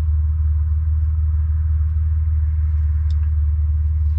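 A steady, loud low mechanical hum, like an engine running, with a faint click about three seconds in.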